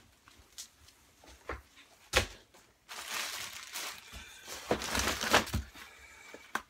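Plastic packaging bags crinkling and rustling as bagged items are handled and tossed out of a cardboard box, after a sharp knock about two seconds in.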